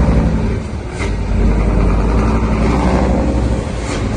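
Heavy truck running on the road: a steady engine drone under road noise, with two brief knocks, one about a second in and one near the end.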